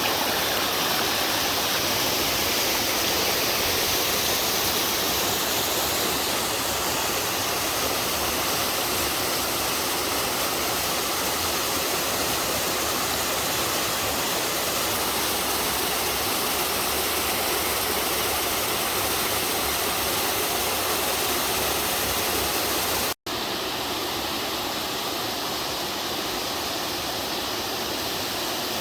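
Mountain waterfall in a valley stream, water falling and splashing in a steady rush. About 23 seconds in the sound cuts out for an instant and resumes slightly quieter with a changed tone, as from a different spot on the falls.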